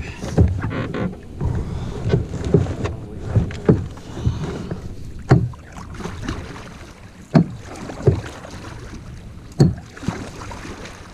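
A 12-foot Sun Dolphin canoe being paddled: swishing paddle strokes in the water with sharp, irregular knocks of the paddle or gear against the hull, about every one to two seconds.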